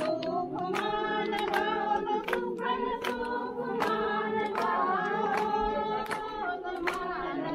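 A crowd of worshippers singing a prayer hymn together, men's and women's voices in unison, with sharp hand claps keeping time a little faster than once a second.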